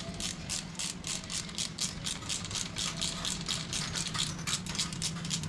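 Hand ratchet wrench clicking in an even rhythm of about four to five clicks a second as a fastener is turned, over a steady low hum.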